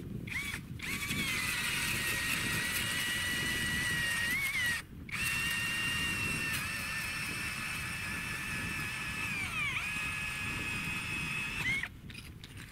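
Motorised ice auger drilling through river ice: a steady motor whine after two short starts, with a brief stop about five seconds in. The pitch sags under load near ten seconds before it cuts off near the end.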